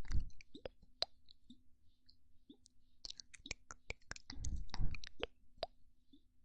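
Close-miked ASMR mouth sounds: many wet clicks and pops at an uneven pace, with two louder low puffs against the microphone, one at the start and one about four and a half seconds in.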